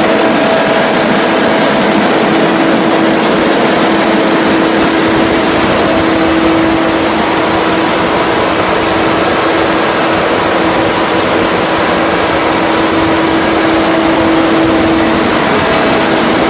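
A 150 kW diesel generator set running at a steady speed: a loud, even mechanical noise with a constant humming tone over it.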